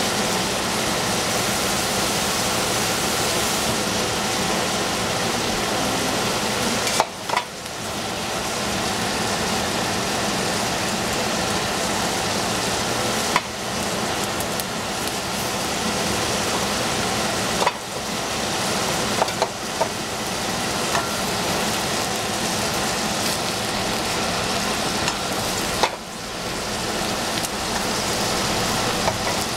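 Food frying in hot oil in a pan, a steady sizzle, broken by a few sharp clicks. The sizzle dips briefly about seven seconds in and again near the end.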